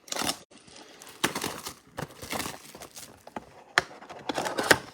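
A cardboard blaster box of trading-card packs being opened and handled: a run of irregular rustles, scrapes and sharp taps as the packaging is pulled open and the packs are taken out.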